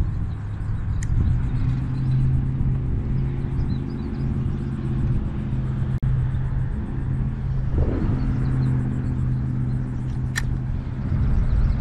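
A steady low engine hum over wind rumble, with a single sharp click near the end.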